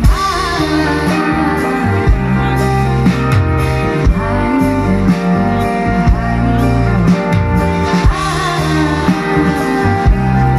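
Live band music heard from within the audience: a woman singing over ukulele, brass and keyboard, with a strong bass line and a steady beat.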